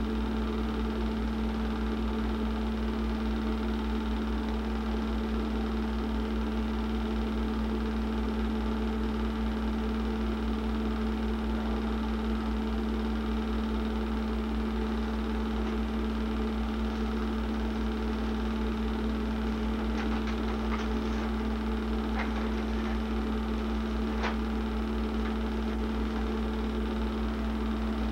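Steady mechanical hum of a home-movie film projector's motor and fan running, with a few faint ticks about twenty seconds in.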